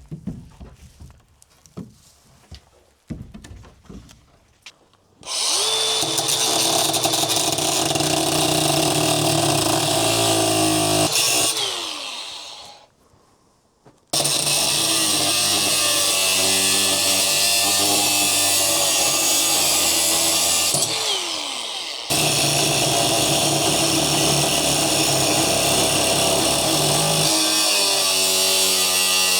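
An electric power tool's motor running under load in three long stretches, after a few seconds of faint knocks. The first run trails off into a short silence; the last two are split by a brief stop.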